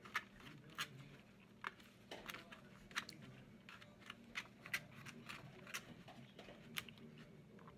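Quiet eating sounds: a plastic fork picking up salad from a foam takeout container while she chews, heard as irregular sharp clicks and crunches, about two a second.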